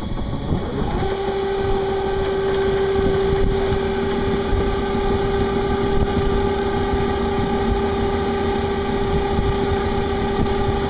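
Electric boat drive motors running together: a whine rises and settles into a steady tone about a second in as both motors come up to speed, over a constant low rumble.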